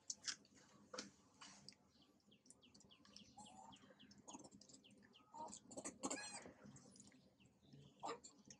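Faint, high-pitched chirping and squeaking calls: a run of short falling chirps a few seconds in and a longer rising-and-falling squeal about six seconds in, with a few sharp clicks early.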